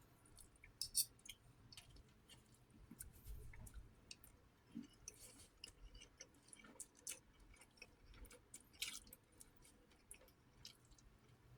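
Faint chewing: scattered wet mouth clicks and smacks as food is chewed, close to the microphone.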